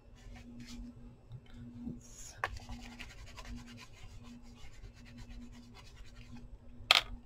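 Paper rustling and scratching as hands press and smooth paper pieces onto a card, with a few light taps and one sharp tap near the end.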